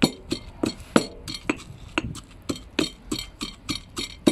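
Stone pestle pounding cilantro and garlic in a green marble mortar, sharp knocks repeating about three to four times a second as the herbs are crushed into a wet paste for mojo.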